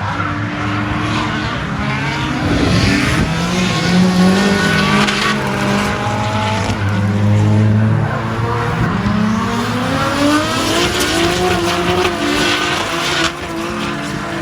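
Rev-limited RB25 turbocharged straight-six in a Nissan S14 drift car, revving hard up and down through a drift run, its pitch climbing and dropping again and again, with tyres squealing.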